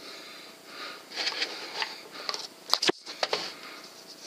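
Scratchy rustling and handling noise close to the microphone, with a string of sharp clicks, the loudest about three seconds in.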